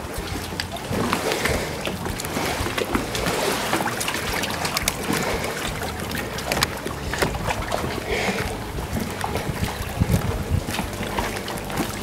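Marina waterside ambience: a steady noise of wind on the microphone and water, with many small scattered knocks and clicks.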